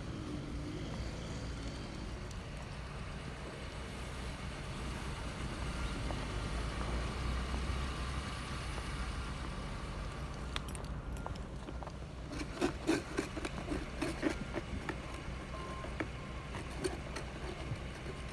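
Car engine idling steadily. A run of short, sharp clicks and knocks comes about twelve to fourteen seconds in.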